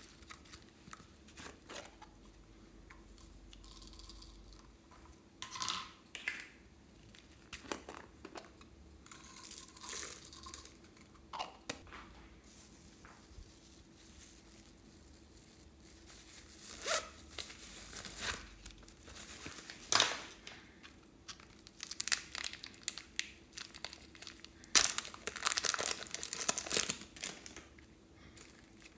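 Crinkling and tearing of plastic packaging in short bursts as small wrapped packets are handled, with a few sharp taps in between; the longest stretch of crinkling comes near the end.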